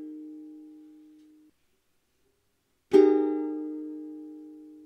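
Ukulele chords strummed once each and left to ring out. A chord fades and stops abruptly about a second and a half in, and after a short silence another chord is struck about three seconds in and decays slowly.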